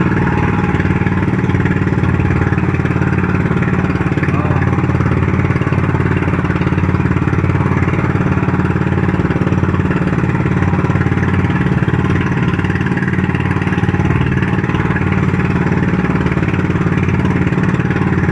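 Engine of a motorized outrigger boat (bangka) running steadily at cruising speed, over a steady hiss of water and wind.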